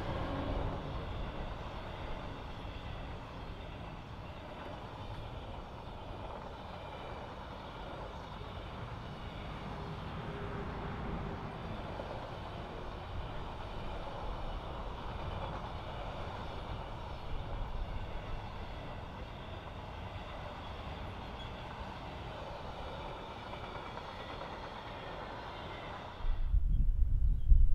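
Container wagons of an intermodal freight train rolling past, a steady noise of wheels running on the rails. About a second and a half before the end, a much louder low rumble comes in suddenly.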